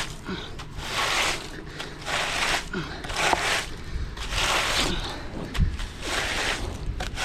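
Rhythmic scraping strokes, about one a second, each a short swish, of a hand tool worked over a rough surface.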